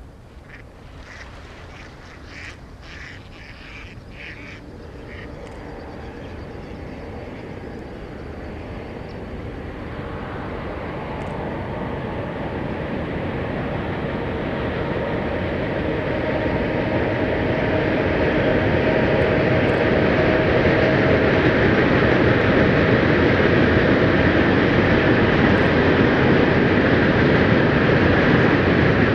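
Freight train approaching and running past across a lake, its rumble and wheel noise growing steadily louder and loudest near the end. A few short waterfowl calls come in the first few seconds.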